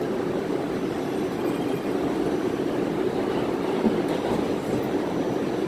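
Inside a moving New York City subway car: steady rumble of the train's wheels on the rails and its running gear.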